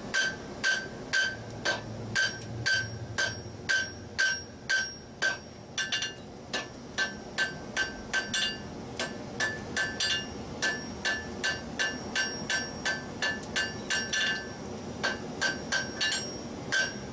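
Blacksmith's hand hammer striking a white-hot steel leaf-and-scroll assembly on the anvil in steady blows, about two a second, each with a bright anvil ring. This is forge welding the pieces together.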